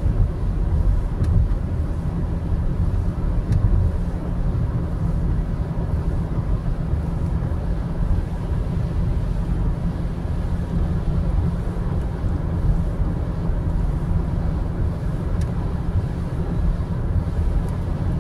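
Steady low road noise inside the cabin of a car driving at highway speed: tyres and engine running with no change.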